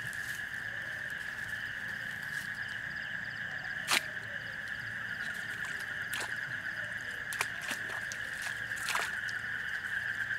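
Steady, high, grainy trilling of night insects, with one sharp knock about four seconds in and a few fainter clicks and rustles after it.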